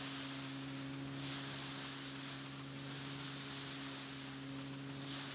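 Steady low hum of a belt-driven threshing mill running, one unchanging pitch with an even hiss over it.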